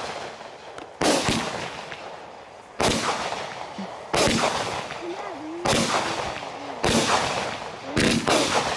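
Aerial fireworks bursting in the sky: about six loud booms, one every second or so, each trailing off before the next, as a lit multi-shot firework cake fires its shells in turn.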